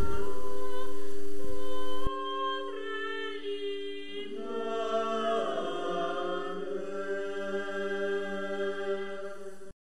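Background music of voices singing a slow, chant-like medieval melody over held drone notes. It drops in level about two seconds in and cuts off abruptly just before the end.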